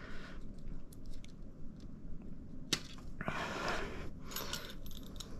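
Faint handling sounds of screen-door rescreening work with a small knife and spline: a sharp click about two and a half seconds in, a short scraping rustle just after, and a few light clicks near the end.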